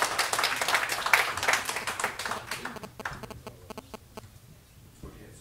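Audience applauding, a dense patter of clapping that thins out and dies away about three to four seconds in.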